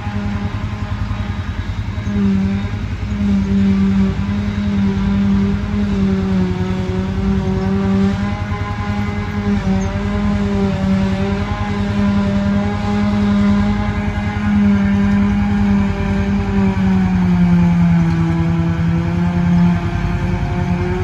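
Self-propelled forage harvester chopping hay, its engine and cutterhead running under load as a steady droning hum. The pitch sags briefly near the end, then recovers.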